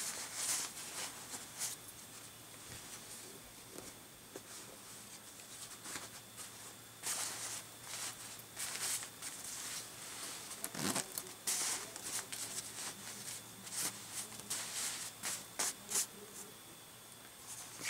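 Short, irregular bursts of fabric rustling and handling noise from a padded baby jacket being worked onto a doll, thickest about seven to nine seconds in and again around eleven seconds.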